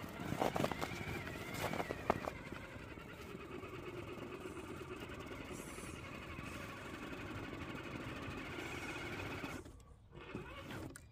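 Electric drive of an Absima Sherpa RC crawler, a brushless motor with a metal gearbox, running steadily as the truck climbs a snow slope, then cutting out about ten seconds in as it stalls on a slope too steep for it. A few footsteps in snow sound in the first two seconds.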